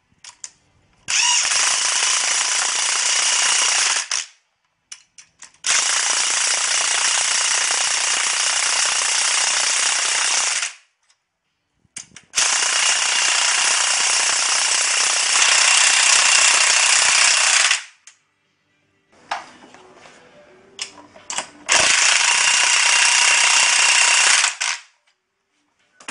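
Power impact wrench hammering as it drives the threaded rods of a coil spring compressor, squeezing a car's front coil spring. It runs in four long bursts of a few seconds each with short pauses between, and small clatter of the tool on the compressor around the last pause.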